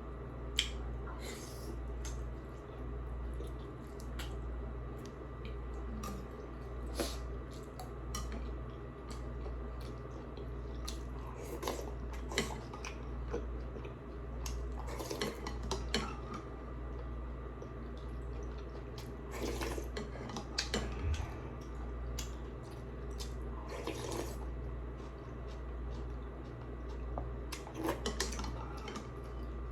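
Eating sounds from a bowl of noodle soup: a spoon and chopsticks clinking against the dishes now and then, with wet slurping, over a steady low pulsing hum.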